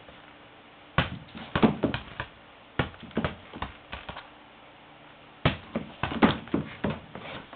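Two runs of quick knocks and taps, one starting about a second in and another past five seconds: a pet rooster pecking and knocking a small toy ball about on a hard floor.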